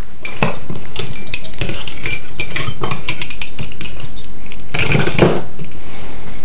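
Small metal parts clinking and rattling as head bolts and washers are handled at the cylinder head of a 60cc Suzuki engine, with a louder clatter about five seconds in.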